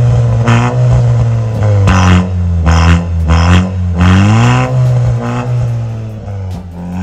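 Modified Mahindra Thar's aftermarket valvetronic exhaust, the engine revved in a series of short blips, each rising and falling in pitch, loud and throaty at the tailpipe.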